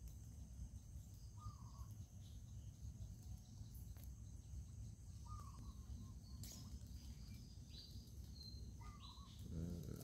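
Faint rural outdoor ambience: a steady high drone of insects with a few short bird chirps spread through, over a low steady rumble. A brief lower-pitched call sounds near the end.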